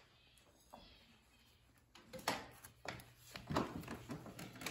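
Quiet room, then from about two seconds in a run of soft rustles and several light knocks, the sound of handling and of fabric bedding being moved.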